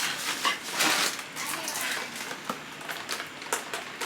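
Plastic grocery bags and chip-bag packaging crinkling and rustling in irregular handfuls, with a few light clicks and knocks, as groceries are unpacked.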